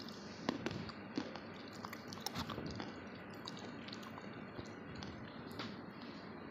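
Dry roasted clay crunching as it is bitten and chewed: irregular crisp cracks and crackles, a few louder snaps standing out.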